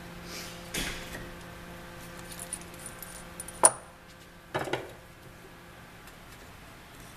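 Small metal clinks and knocks from handling a steel wood-marking stamp and its removable knurled steel handle on a workbench: a soft knock about a second in, a run of light clinks, then one sharp ringing clink, the loudest, followed by two quick knocks.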